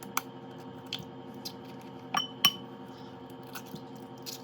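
Kitchenware clinking: about six light, scattered taps of utensils against bowls, two of them a little past the middle ringing briefly like glass.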